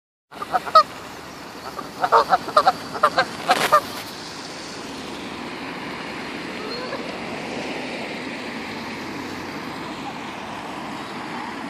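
Canada geese honking: a quick run of about a dozen short honks over the first four seconds, then a steady rushing background noise.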